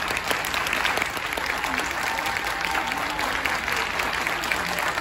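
Audience applauding: dense, steady clapping at the end of a string quartet performance.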